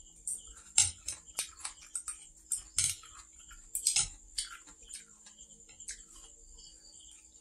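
Close-up eating sounds: irregular wet mouth clicks from chewing stir-fried noodles, mixed with chopsticks tapping against a plate. The clicks thin out in the last couple of seconds.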